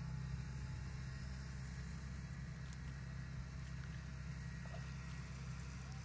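A steady, low engine hum that stays even throughout.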